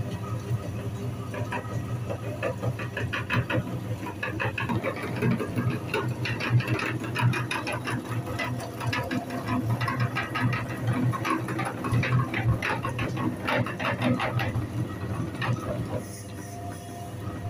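Meat grinder running with a steady motor hum as bars of soap are forced through it, the soap crackling and crunching as it is crushed and pushed out through the plate. The crackling stops about a second and a half before the end while the hum goes on.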